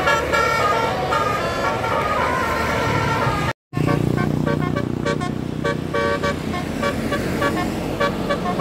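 Indonesian bus 'telolet' multi-tone musical horn playing quick runs of notes over the bus's engine noise. The sound cuts out abruptly for a moment a little over three seconds in, then comes back as short repeated horn notes.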